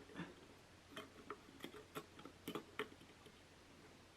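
Faint, irregular small clicks and taps of a laptop-style RAM stick being handled and pressed into the Intel NUC's memory slot, about nine light ticks over three seconds.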